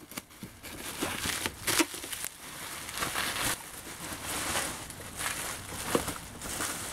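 Cardboard toy box and its packaging being handled and pulled open, rustling and crinkling, with a couple of sharper clicks about two seconds in and near the end.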